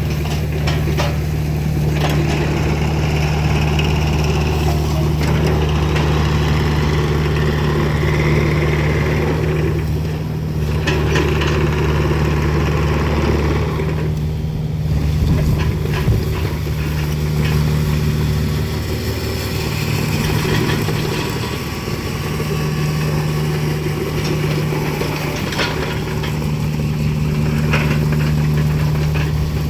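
Kubota KX057-4 mini excavator's diesel engine running steadily, its note shifting a few times, with a few light knocks.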